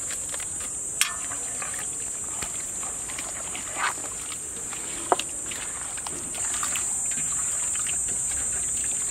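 Wet squelching and slapping of a hand mixing mutton pieces into a thick yogurt and spice marinade in a large metal pot, with a couple of sharp clicks. Behind it a steady high insect buzz runs throughout and grows louder a little past six seconds in.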